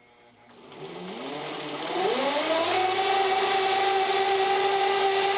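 Old sewing machine's electric motor starting up, its whine rising in pitch for about two seconds and then running steady at full speed. The drive belt is slipping, which can really be heard.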